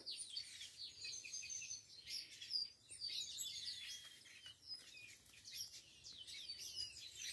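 Faint chorus of small songbirds singing and chirping together, many short high calls and whistled glides overlapping.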